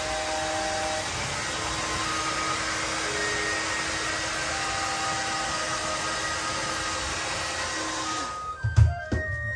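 Handheld hair dryer blowing steadily on a golden retriever's coat, switched off shortly before the end and followed by a couple of thumps. Soft background music plays underneath.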